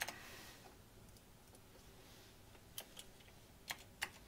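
A few separate computer keyboard keystrokes: one click at the start, then four spaced-out clicks over the last second and a half, against faint room hiss.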